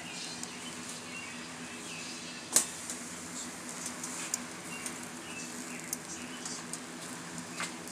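Chicken grilling on a wire rack over charcoal and wood embers: scattered small crackles and pops, with one sharp snap about two and a half seconds in, over a steady low hum.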